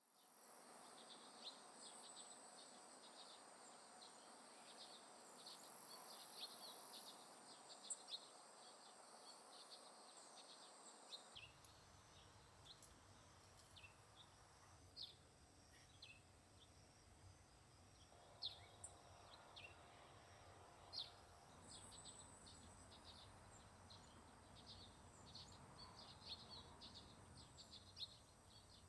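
Faint outdoor garden ambience: scattered short bird chirps over a steady high-pitched insect trill. A soft low rumble joins about eleven seconds in.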